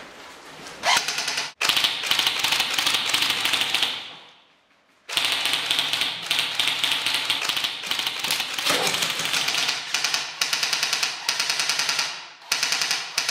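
Custom-built Systema M4 airsoft rifle firing long full-auto bursts, a fast, even rattle of shots. It starts about a second in, stops for about a second around four seconds in, then starts again and runs on with short breaks.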